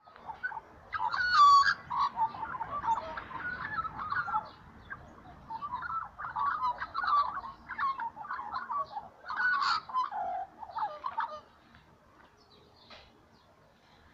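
Young Australian magpies singing: a continuous warble of fluting, gliding notes. It fades to a few faint calls about eleven seconds in.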